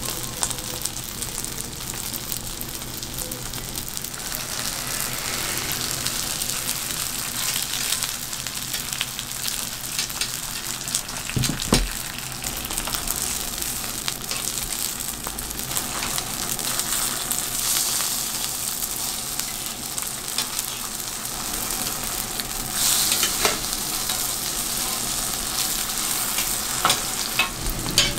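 Pan-fried dumplings sizzling in oil on a flat griddle, a steady hiss, with occasional sharp clicks and taps of metal tongs as they are turned and lifted.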